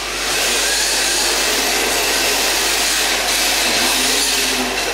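Two electric RC drift cars running in tandem: a steady, even hiss of high-revving motors and hard tyres sliding on the smooth track.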